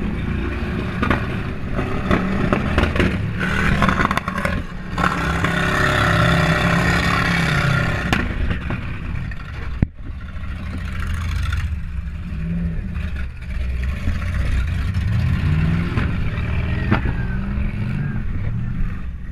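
Demolition derby car's engine revving up and down repeatedly, heard from inside the cab, with clattering and scraping knocks from the car, including one sharp knock just before halfway.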